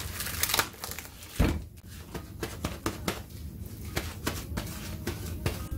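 Plastic cling film crinkling as it is peeled off a plastic meat tray, then a paper towel rustling as raw beef is blotted dry, with one dull knock about a second and a half in.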